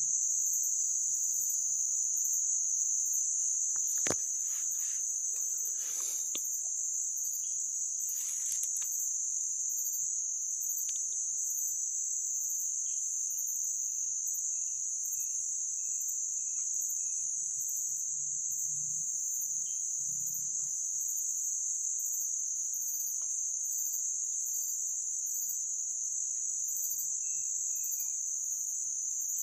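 Steady high-pitched insect chorus, with a faster pulsing buzz above it. A single sharp knock comes about four seconds in, followed by some rustling, and a short run of small falling chirps comes near the middle.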